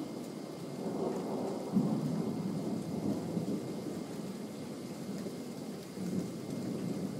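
Thunder rumbling through a thunderstorm, swelling about a second in, loudest just under two seconds in, and swelling again near the end, with steady rain underneath.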